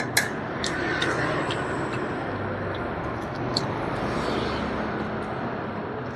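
Steady background noise, like road traffic, with a few sharp clicks scattered through it.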